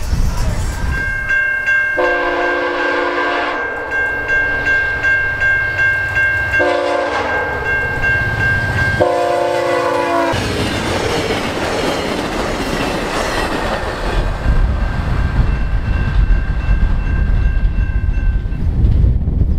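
VIA Rail passenger train's horn sounding three blasts, the last one short, as it nears a level crossing. The horn cuts off as the train passes, and the wheels then rumble and clatter on the rails as the cars go by and fade away.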